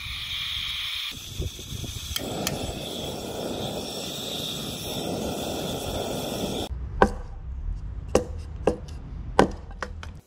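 A steady gas hiss from a butane camping stove setup cuts off abruptly, followed by a hatchet splitting kindling: several sharp chops into wood, about one a second.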